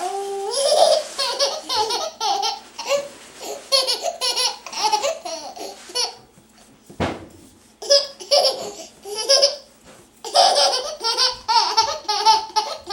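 Twin baby boys laughing in several fits of high, bubbling laughter, broken by short pauses.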